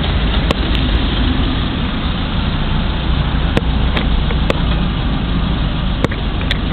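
Steady low rumble of a motor vehicle running, with a few short sharp clicks scattered through it.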